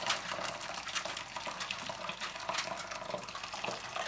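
Very hot water pouring steadily from a kettle into a glass dish lined with aluminium foil, splashing as it fills.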